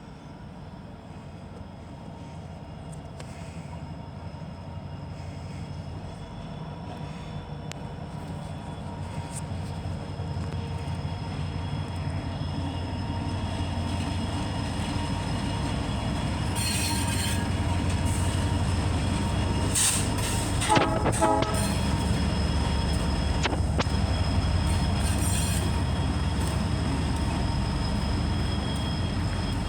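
CN train approaching, the rumble of its diesel locomotives growing steadily louder for about eighteen seconds, then rolling past with a steady high squeal of wheels on rail. There are sharp clanks and a brief pitched blare a little after twenty seconds in.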